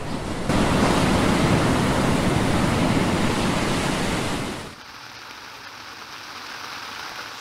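Ocean waves sleep-sound recording playing as a steady rush of surf. About four and a half seconds in it switches abruptly to a quieter recording of rain pattering on a tent.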